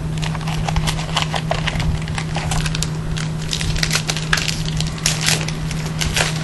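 Foil wrapper of a Panini Prestige football card pack crinkling and rustling in irregular crackles as hands handle the pack and cards, over a steady low hum.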